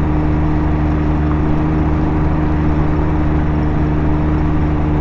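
Can-Am Ryker three-wheeled motorcycle's engine running at a steady cruising speed, a constant drone of unchanging pitch, with wind and road noise.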